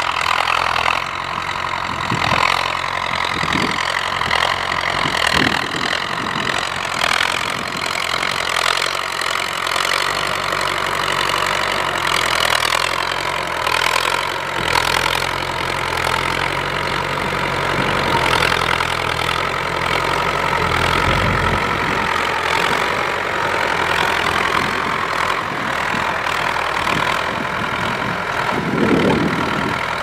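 Ford 6600 tractor's diesel engine running steadily while the tractor ploughs dry soil.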